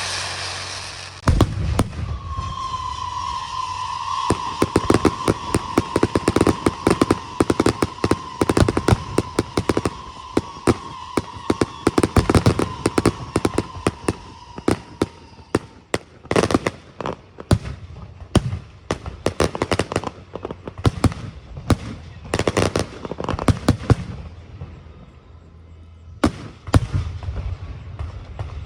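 A fireworks display going off: a rapid run of sharp bangs and crackling, with a long whistle that sinks slightly in pitch over its first half. The bangs thin out to a brief lull about three-quarters of the way through, then pick up again.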